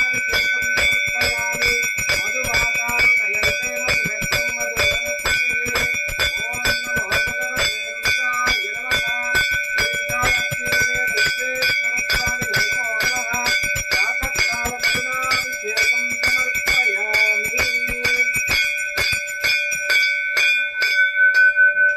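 A puja bell rung rapidly and continuously during the abhishekam, its clapper striking several times a second over a steady ringing tone. The strikes stop near the end and the bell rings on and fades, with a voice chanting faintly underneath.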